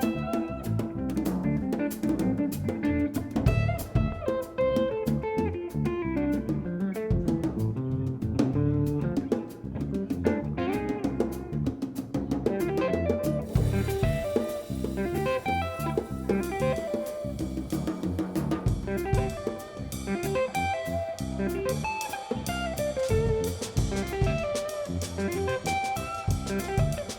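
Live instrumental improvisation by a trio of guitar, bass and drum kit, with the guitar playing running melodic lines over steady bass and drums. The drumming grows brighter and busier about halfway through.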